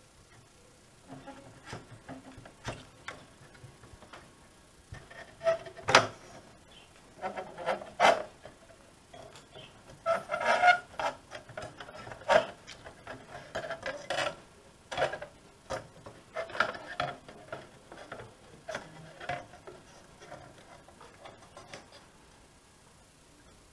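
Irregular clicks, knocks and scraping of metal and plastic parts as the main circuit board of a VW RNS510 navigation radio is worked out of its metal chassis by hand, with a few sharper knocks among them.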